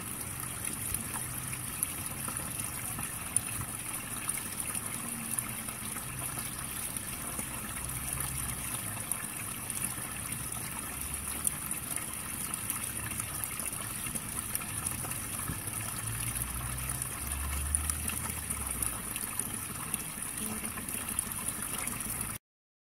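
Water trickling steadily into a small garden pond, a constant bubbling splash that cuts off suddenly near the end.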